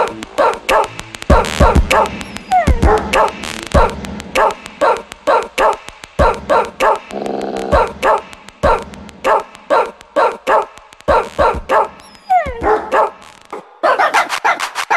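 A dog barking over and over, about two to three barks a second, with a couple of higher yelps that slide in pitch, over background music.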